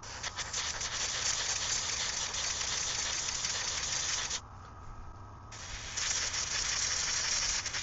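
Airbrush spraying paint: a steady hiss for about four seconds, a pause of about a second, then a second spray of about two seconds.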